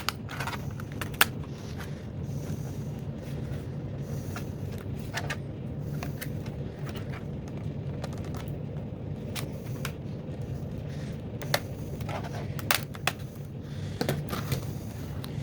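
Scattered small clicks and scrapes of a screwdriver and hands working the screwed plastic back cover off a Dell laptop, over a steady low hum.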